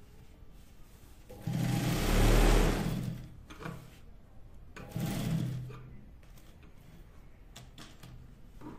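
Industrial sewing machine stitching black piping onto the edge of a canvas bag, run in two bursts: a longer one of about two seconds, the louder, and a shorter one of about a second.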